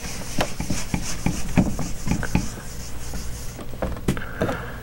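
Whiteboard eraser being scrubbed back and forth across a whiteboard: a rubbing hiss broken by many quick knocks from the strokes against the board. The rubbing stops about three and a half seconds in, and a few more knocks follow.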